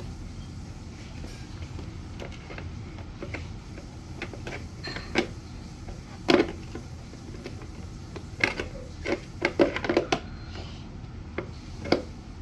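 Scattered clicks and knocks of vacuum cleaner parts being handled and twisted into place. The loudest comes about six seconds in, with a cluster of them around nine to ten seconds.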